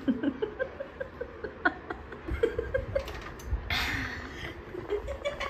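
A young woman laughing in a run of short bursts, with a louder breathy rush of air a little under four seconds in.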